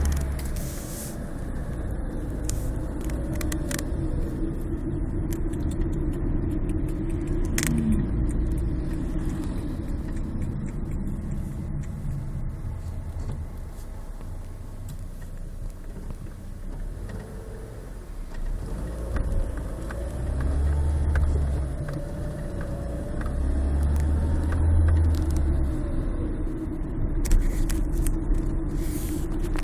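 Car driving: a steady low engine and road rumble, with a faint wavering whine that rises and falls.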